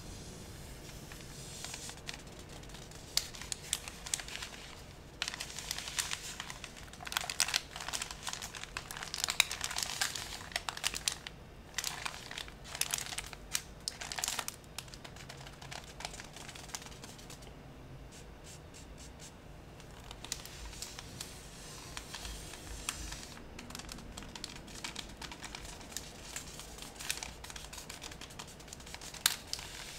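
Toilet paper being scrunched and crinkled by hand in irregular crackling bursts. The bursts are busiest in the first half and sparser later, with a sharp crackle near the end.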